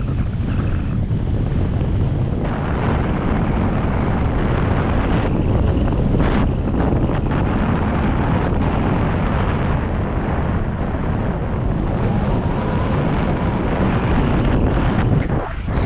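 Steady, heavy wind buffeting on the microphone of a camera mounted on a moving bike.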